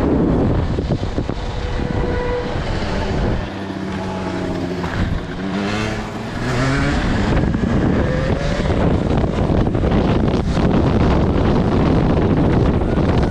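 Heavy wind buffeting on the microphone of a dirt bike ridden at speed. In the middle an engine's pitched drone rises and falls for a few seconds.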